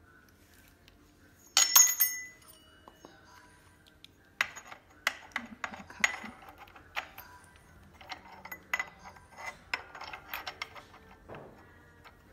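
Small metal parts of an electric scooter's folding latch clinking and clicking as they are handled and fitted together: a loud ringing clink about two seconds in, then a run of lighter clicks and taps.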